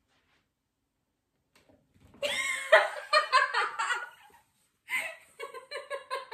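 Excited laughter in two outbursts, the first starting about two seconds in and the second, near the end, in quick repeated pulses.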